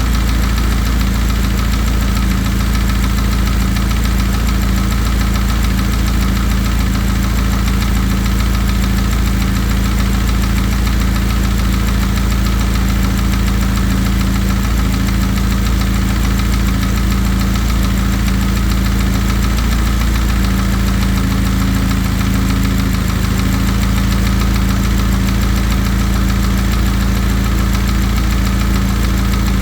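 VW/Audi EA888 turbocharged four-cylinder engine idling steadily with a knocking rattle, which the owner takes for piston slap.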